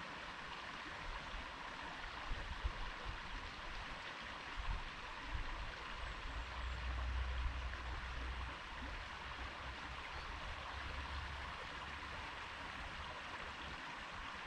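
Stream water running steadily. A low rumble swells about six seconds in and fades out by about eleven seconds.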